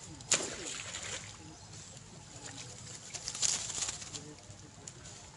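Long-tailed macaques splashing in shallow floodwater: one sharp splash about a third of a second in, then a second, softer burst of splashing about three and a half seconds in.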